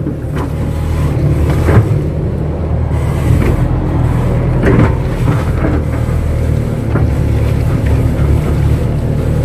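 Kato crawler excavator's diesel engine running steadily under load as it digs, with a few faint knocks along the way.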